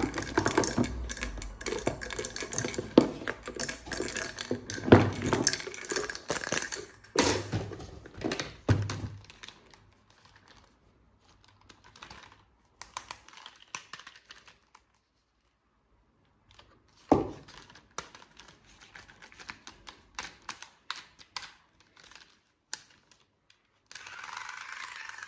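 Quick clicks, taps and clatters of plastic toy parts and packaging being handled, dense for the first nine seconds, then sparse with one louder knock. Near the end a steady buzzing hum starts.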